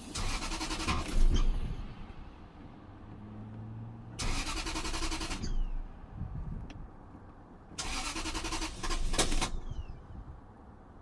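1997 Lexus LS400's 4.0-litre V8 cranked by its starter three times, each for about a second and a half, without catching: a crank-but-no-start fault.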